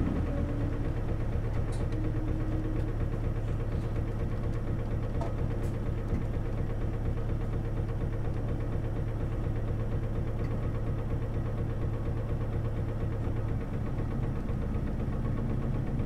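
Seibu Bus A3-947's diesel engine idling steadily, heard from inside the bus, with a few faint clicks. The engine note changes about two seconds before the end.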